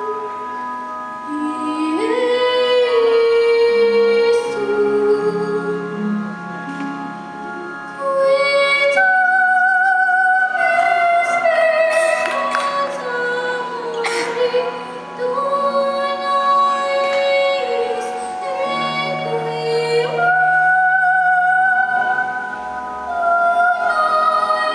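A young girl singing a slow melody into a microphone, holding long notes, over sustained instrumental backing.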